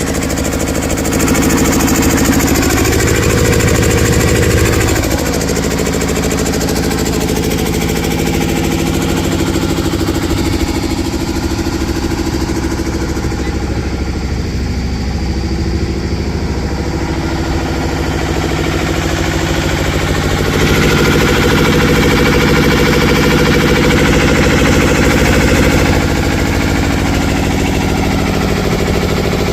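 Generator engine running steadily under load, with two louder stretches: one a second or so in, the other about two-thirds of the way through.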